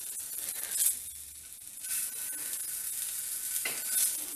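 A batter-coated bread roll sizzling as it shallow-fries in a spoonful of oil in a nonstick pan. The sizzle surges briefly a few times as the roll is turned over in the pan.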